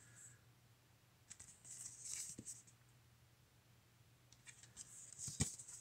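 Faint rustling and scraping of a cardboard CD gatefold sleeve being handled and opened, in two short spells, with a light tap near the end.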